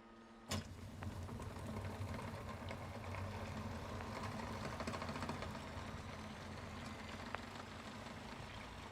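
A small power tool's motor switches on with a click and runs steadily.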